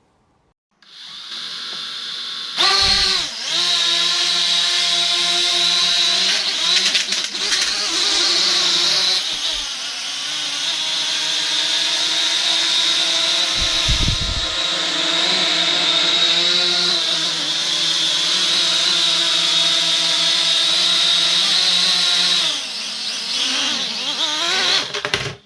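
Tiny folding quadcopter's motors spinning up with a rising whine, then running at a high, steady whine that wavers in pitch as the throttle changes. There is a single low thump about halfway through, and the motors wind down near the end.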